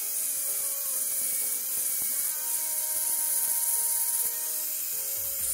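Hand-held angle grinder running steadily, its disc grinding down the cooling ribs on the metal can of an RC brushless motor.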